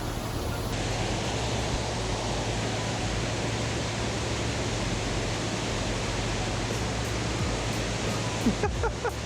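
Steady rush of water pouring over a dam.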